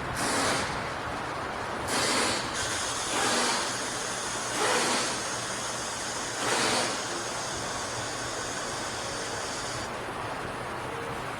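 Five short hissing bursts, each about half a second long and a second or two apart, with a fainter steady high hiss underneath that cuts off near the end.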